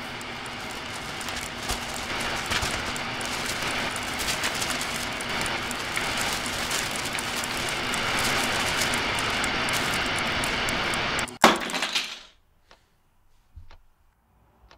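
A dense, crackling wash of noise slowly builds louder for about eleven seconds, then ends in a sharp crash with a couple of short after-bursts and cuts off abruptly, leaving only a few faint ticks.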